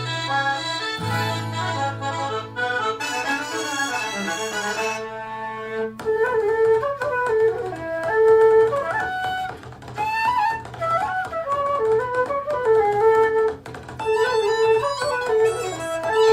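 Music played back through a Sony SRS-XB22 Bluetooth speaker with its Extra Bass mode on. A low bass note is held under a melody for the first few seconds. About six seconds in, the music changes to a quicker, busier melody line over a lighter bass.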